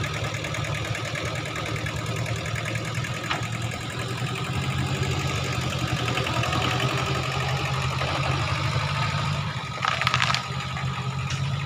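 Kubota L1500 tractor's diesel engine running steadily while pulling a trailer loaded with oil palm fruit bunches, getting a little louder about halfway through. A short, louder burst of noise comes near the end.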